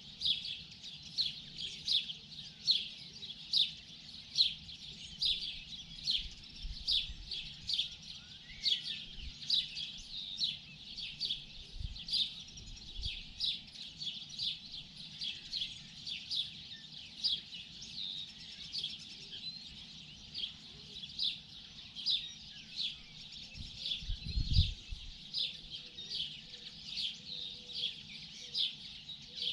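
Morning birdsong: a short, high chirp repeated about twice a second without a break. A brief low rumble is heard about three quarters of the way through.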